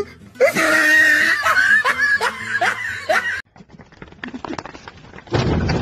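A person laughing in a string of breathy bursts that rise and fall in pitch, cut off after about three seconds. Then come fainter scattered clicks, and near the end a short, loud rush of noise.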